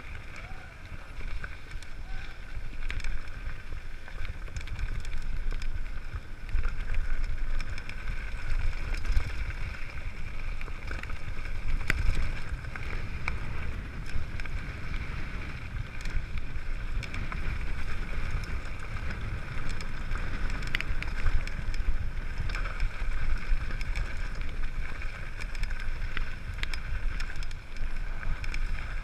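Mountain bike rolling fast downhill on a loose gravel track: wind rumble on the handlebar camera, with a rattle and frequent clicks from stones and the bike. A steady high whir runs over it throughout.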